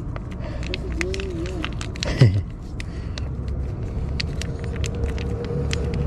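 Foil pet-food pouch crackling and crinkling as it is torn and squeezed out into a steel bowl, over a steady low vehicle rumble. A dog whines briefly about a second in and again just after two seconds.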